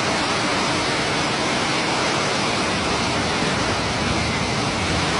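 Flash floodwater surging down a street: a loud, steady rush of water noise.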